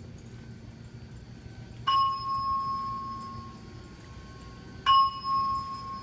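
Fire alarm system speaker sounding two chime dings about three seconds apart, each ringing out and fading over about a second: a speaker test of a Simplex 4100U voice system.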